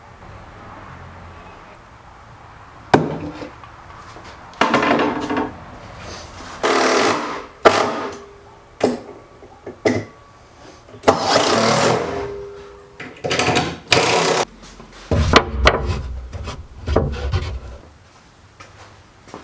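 Hand-held power tool working wood in a series of short bursts, about a dozen runs of half a second to a second and a half each, broken by sharp knocks.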